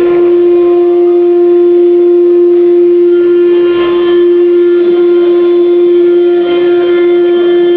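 Wood CNC router's spindle running with a steady, unchanging high whine, with fainter overtones that come and go.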